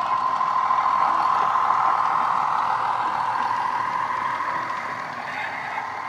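Model Bachmann Class 170 Turbostar diesel multiple unit running past with its DCC sound decoder playing a Class 170 diesel engine recording through small speakers. It grows louder in the first second or two, then slowly fades as the unit moves away.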